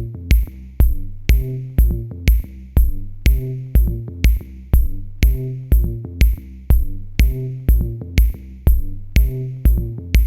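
Background music with a steady drum beat, about two beats a second, over low bass notes.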